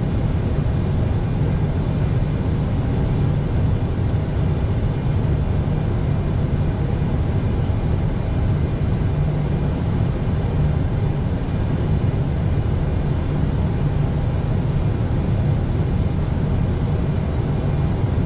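Steady low rumble of airflow and jet engines heard inside an airliner's cockpit in flight.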